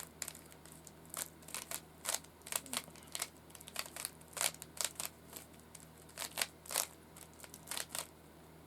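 Rubik's cube layers being turned by hand: a quick irregular run of plastic clicks and clacks, several a second.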